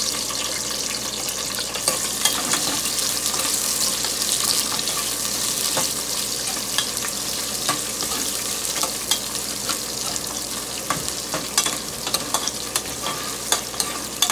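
Onion chunks sizzling as they sauté in hot oil in a stainless-steel pot, stirred with a spoon that clicks and scrapes against the pot now and then.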